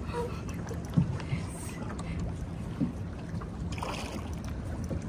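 Small boat at sea: a steady low hum with wind and water noise, and two short knocks about two seconds apart.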